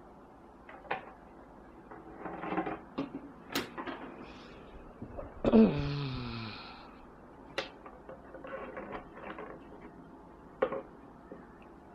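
Arabian Mau kittens play-fighting on a wooden tabletop: scattered knocks and scuffles of paws and bodies on the wood. About halfway through there is a louder short sound that falls in pitch.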